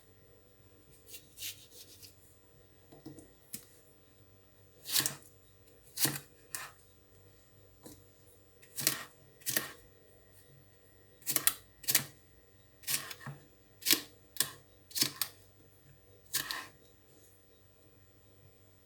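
Knife cutting a cucumber on a cutting board: irregular sharp taps, some in quick pairs, stopping a couple of seconds before the end.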